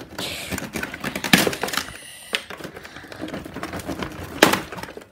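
Scissors snipping plastic zip ties on a cardboard packaging insert, with cardboard and plastic rustling; two sharp snips stand out, about a second and a half in and near the end.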